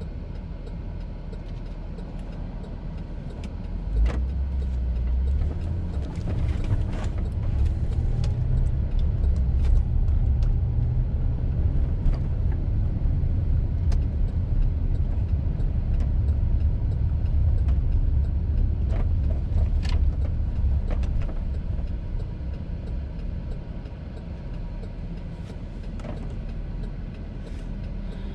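Car driving, its low engine and road rumble picking up about four seconds in and easing off again near the end.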